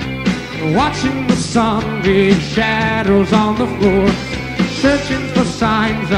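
Live rock band recording: a lead vocal sung over electric guitar and drums.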